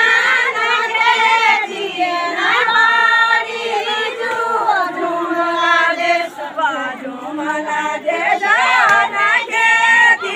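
A group of women singing a Kumaoni jhora folk song together, in melodic phrases of about two seconds with short breaks between them.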